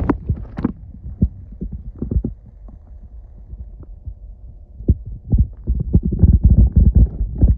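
Muffled low thumps and rumbling picked up by a smartphone's microphone held underwater, with water and handling knocking against it. The knocks come thickest and loudest in the last couple of seconds.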